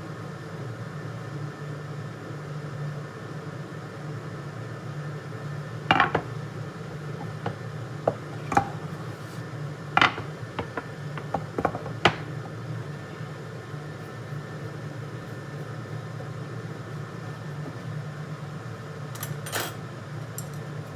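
Kitchenware being handled: a cutting board and utensils knocked and set down, a quick run of sharp clatters and knocks in the middle and two more near the end, over a steady low hum.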